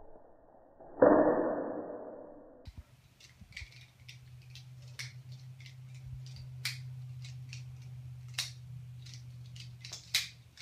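A loud, muffled thud about a second in that dies away. Then, from about three seconds in, irregular sharp metallic clicks and clacks of a SOG multitool's loose handles being flipped open and shut balisong-style, over a steady low hum.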